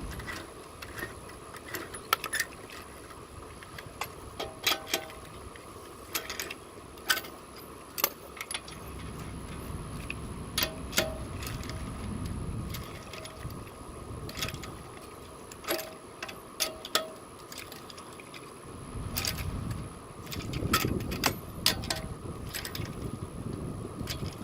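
Scattered metallic clinks and clicks of lug nuts and a wrench socket being handled while a car's front wheel is fitted back onto its studs, with two stretches of low rumble.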